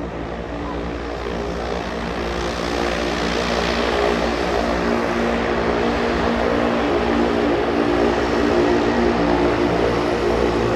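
Cessna 208B Grand Caravan's Pratt & Whitney PT6A turboprop running with its propeller as the plane taxis, a steady drone with a hum of several even tones. It grows louder over the first few seconds as the plane comes closer, then holds loud.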